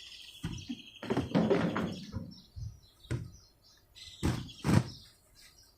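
Handling noise from unboxing a mower: cardboard and packing being moved about. A thin high squeal sounds for the first two seconds, with rustling after about a second, then about three separate knocks.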